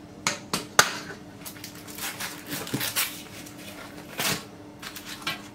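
The metal parts of a springform cake pan clicking and knocking on a wooden board as they are handled, with a short scrape just after four seconds in.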